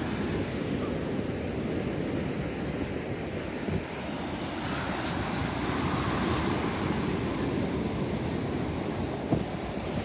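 Sea surf breaking and foamy wash running up over a sand-and-pebble shore, swelling about halfway through as a wave washes in, with wind buffeting the microphone.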